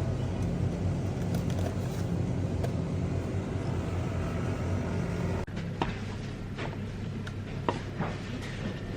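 A steady low vehicle rumble that cuts off suddenly about five and a half seconds in, giving way to a quieter background with a few light clicks and knocks.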